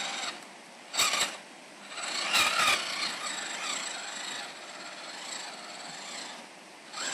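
Radio-controlled crawler truck's electric motor and gears whining in short bursts as the throttle is worked, the pitch rising and falling, with tyres scraping and grinding over sticks, stones and mud. The loudest bursts come about one and two and a half seconds in and again near the end.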